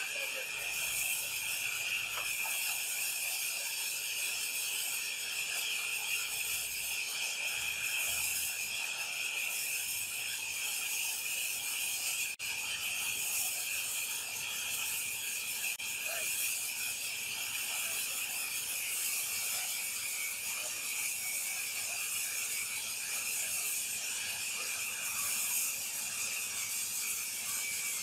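Sawmill machinery running, a steady high-pitched rattling rasp with no letup.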